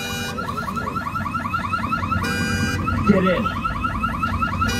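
Car alarm sounding among wrecked cars as a set effect: a fast warbling chirp about six times a second, with a horn-like blast every two and a half seconds.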